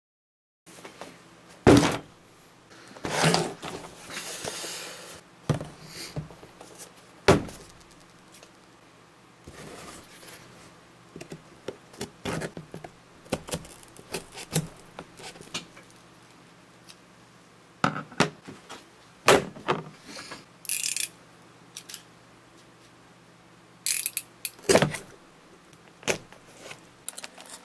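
A cardboard shipping box being handled and turned over on a desk: scattered thunks and knocks as it is set down and shifted, with a brief rasping scrape of cardboard about four seconds in.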